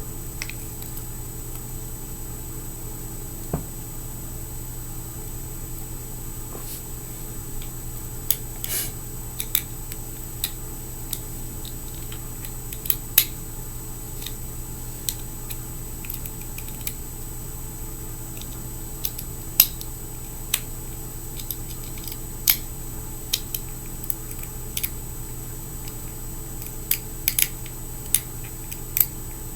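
Scattered small clicks and taps, irregular and a few louder than the rest, from handling fingerboard truck parts while fitting a truck onto the deck, over a steady background hum.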